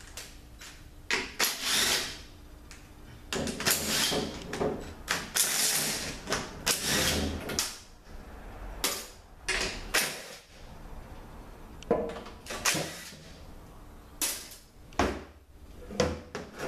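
Cordless power driver running in short bursts, spinning out the oil-pan bolts on an automatic transmission. Metal clatter and scraping come as the pan is worked loose near the end.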